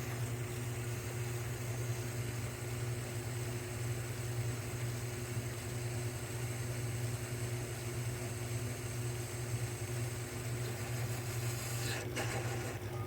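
1938 South Bend 9 lathe running steadily through a slow finishing cut on a 416 stainless steel bar, a steady motor hum with a light hiss above it. The higher hiss drops away about a second before the end.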